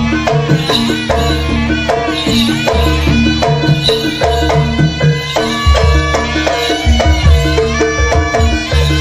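Live Javanese jaranan dance music: drums and a repeating melodic pattern over heavy bass, played without a break.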